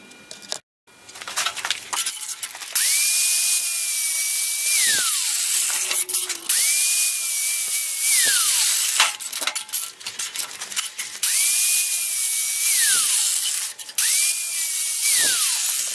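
Handheld power drill run four times: each time the motor whines up to speed, drills steadily for about two seconds and winds down. The drilling is typical of making rivet holes in an aluminum plate.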